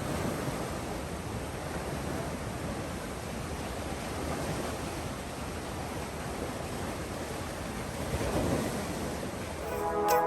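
Sea waves washing on a shore: a steady rush that swells briefly near the end.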